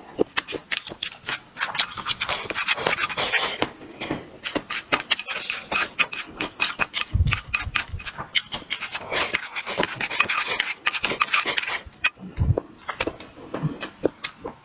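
Close-miked eating: wet chewing and lip-smacking over mouthfuls of rice, with wooden chopsticks scraping and clicking against a ceramic bowl. Two short low thumps come about seven and twelve seconds in.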